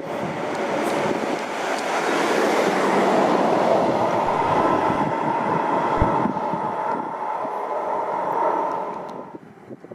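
A train running past on the rails: a steady rolling rail noise with a held whine, loudest a few seconds in, then dropping away quickly about nine seconds in.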